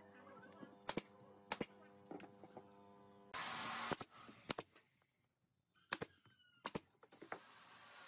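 Nail gun firing brads into pine boards of a wooden water wheel: about six sharp shots, roughly in pairs, with a short loud hiss about three and a half seconds in and a faint steady hum in the first few seconds.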